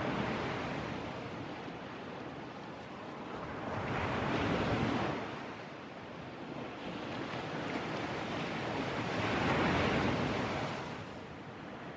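Sea surf breaking and washing up the beach, three swells of rushing noise about five seconds apart.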